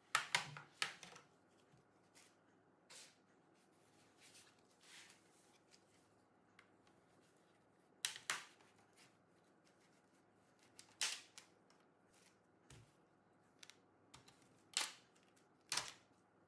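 Plastic retaining clips of an MSI Thin A15 B7V laptop's bottom cover snapping loose as a thin plastic pick is worked along the seam: sharp clicks in small clusters near the start and about eight, eleven, fifteen and sixteen seconds in, with fainter ticks between.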